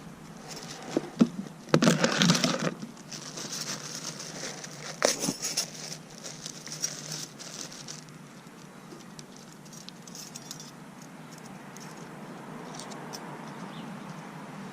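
New brake parts and their packaging being handled: light clicks, rattles and crinkling, with louder rustling bursts about two seconds in and again about five seconds in, then scattered faint clicks.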